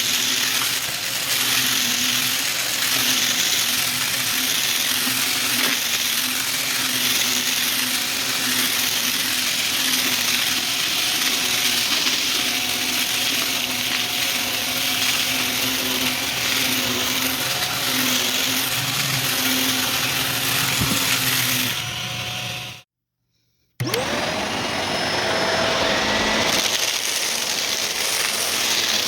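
Vacuum cleaner with a brushroll running steadily. About three-quarters of the way through it cuts off abruptly; after about a second of silence a vacuum motor starts and whines quickly up to speed.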